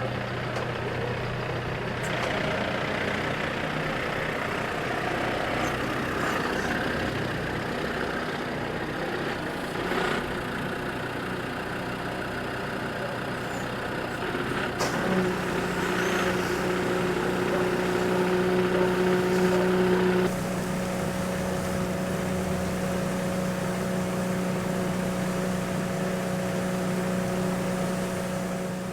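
An engine running steadily. About halfway through its pitch steps up and holds there.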